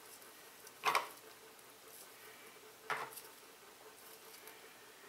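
Two brief clicks of metal on metal as a new pressure gauge is screwed by hand into a brass pipe fitting, one about a second in and one about three seconds in, with hand handling between them.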